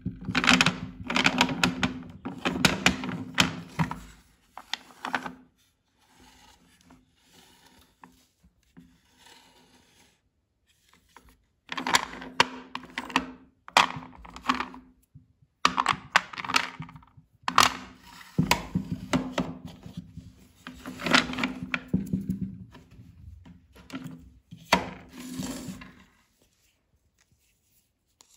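Chalky white bars clacking and knocking against each other and the tray as they are picked up and set down. The clatter comes in bursts, with a quieter gap of several seconds in the middle.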